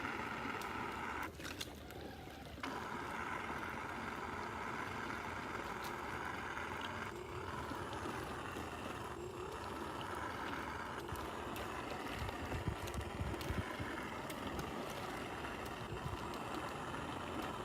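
RC monster truck's electric motor whining steadily as it churns through a deep icy puddle, with water gurgling around it. The whine drops out briefly about a second in, and there are a few knocks near two-thirds of the way through.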